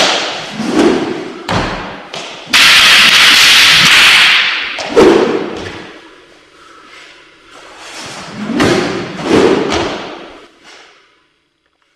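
A rapid series of heavy thuds and whooshing swishes, with a loud rushing noise for about two seconds near the start, dying away shortly before the end.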